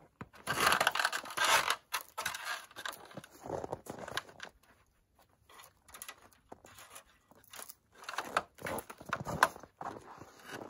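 Irregular rustling and scraping as a string of Christmas lights is unreeled and pulled along the edge of a canvas wall tent, in two louder spells with a sharp click near the second.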